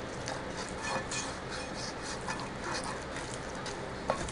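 A spoon stirring thick zucchini quick-bread batter in a mixing bowl: soft, irregular scraping and squishing, with a light knock near the end.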